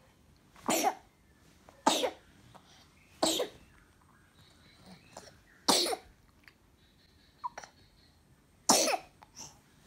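Six-month-old baby coughing: about five short coughs, a second or more apart, from the cough and cold the baby is sick with.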